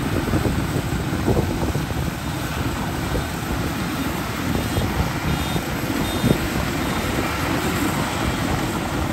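Zoomlion FH100E tracked rice combine harvester running steadily as it moves through the crop, cutting and threshing rice.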